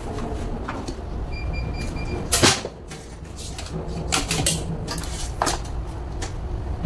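Scattered clicks and knocks of hands handling wires and a plastic connector on an under-dash air-conditioner blower unit, the loudest a sharp knock about two and a half seconds in, over a steady low hum.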